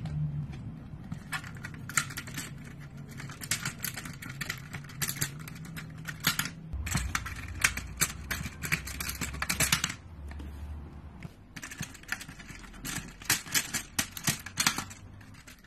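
Plastic Connect Four discs clicking and rattling as they are handled and dropped down the grid's columns, in several runs of quick clicks, over a low hum.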